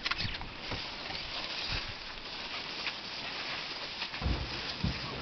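A herd of African elephants moving through dry scrub close by: rustling and scattered crackles of brush and footfalls, with a couple of low thumps near the end.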